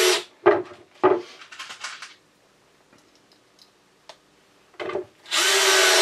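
Cordless drill driving square-drive screws into plywood. The motor runs in bursts: a run that stops just after the start, two short bursts about half a second and a second in, then a longer run of about a second near the end as a screw is seated.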